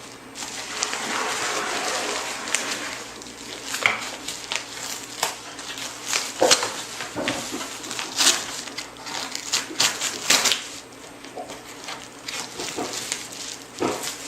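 A mailing envelope being cut and torn open by hand: rustling and crinkling of the packaging, with many sharp clicks and snaps scattered throughout.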